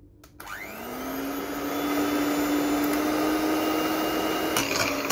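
Electric hand beater switched on about half a second in, its motor rising in pitch as it comes up to speed and then running steadily as it beats butter to soften it. Near the end the beaters start knocking irregularly against the bowl.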